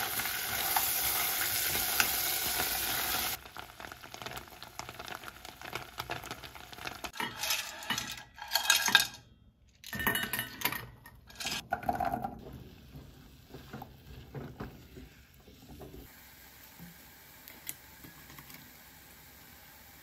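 Asari clams sizzling in butter in a pot as a spatula stirs them; the sizzle stops after about three seconds. Then clam shells and the pot clatter against a stainless steel bowl as the clams are tipped out, followed by faint clinks of shells.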